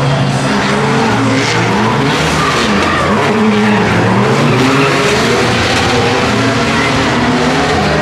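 Drift car's engine revving, its pitch rising and falling again and again, over the tyres screeching as the car slides sideways through the corner.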